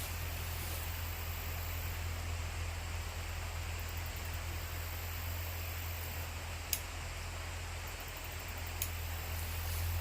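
Steady rushing of a flowing creek with a low hum beneath it, and two faint clicks about two seconds apart in the second half.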